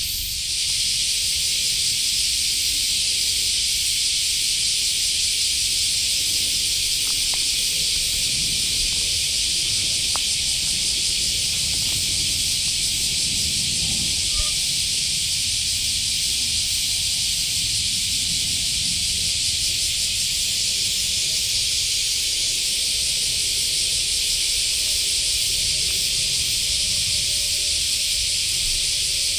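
Dense insect chorus in woodland: a steady, high-pitched hiss that does not let up.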